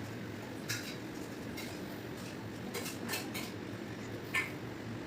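Several short, sharp clicks at irregular intervals over a steady low background noise, the loudest near the end.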